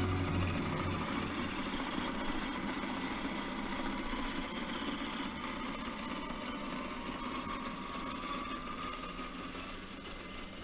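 Electric motor and geared drivetrain of an RC scale trail truck whining steadily as it drives over grass, fading as it moves away.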